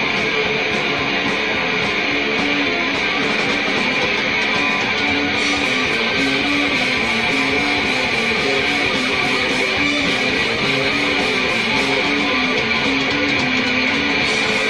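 Hardcore noise-rock recording: a distorted electric guitar riff of short notes repeating over a dense, unbroken wall of harsh noise, at a steady loudness.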